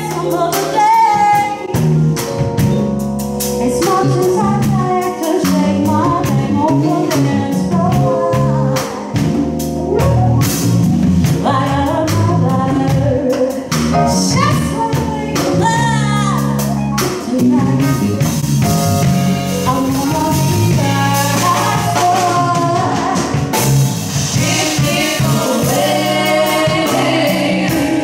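Gospel song: a woman singing lead over a band with a steady beat.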